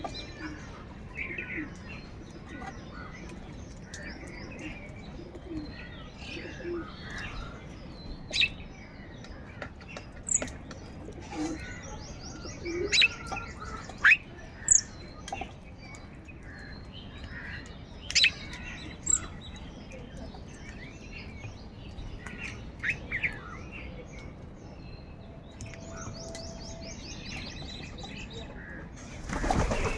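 A mix of birds chirping and calling: many short, sharp calls over a steady background hiss, with a cluster of louder calls between about 8 and 19 seconds in.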